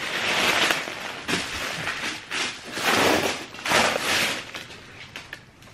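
Heavy packing paper rustling and crinkling as it is handled and pushed aside, in repeated bursts that die down near the end.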